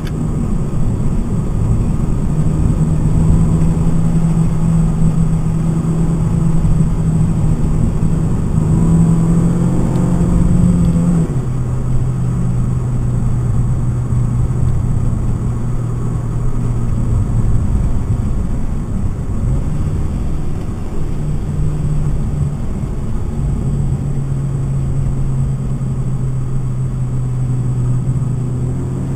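Stock 2012 Mitsubishi Lancer's engine, heard from inside the cabin while it is driven at speed around a race track, over steady road and tyre rumble. The engine note holds steady, drops in pitch about eleven seconds in, and rises and falls again a couple of times later.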